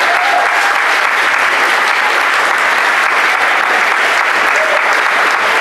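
Audience applauding steadily, dense clapping with a voice or two calling out briefly.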